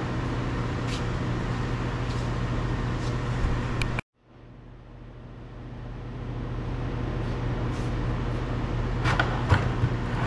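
Steady workshop background hum with a few faint clicks and taps. About four seconds in the sound cuts out completely, then fades back up to the same hum over a couple of seconds.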